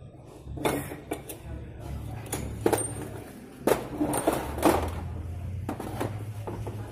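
Metal pump parts clinking and tapping against each other and a steel tray as they are handled, a few sharp separate clinks over a steady low hum.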